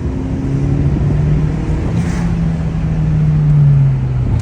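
Turbocharged Honda Civic Si engine running under way with the Cobra PRL intake fitted. Its pitch steps up a little about two seconds in, holds, then falls near the end as the engine loudness peaks and eases off.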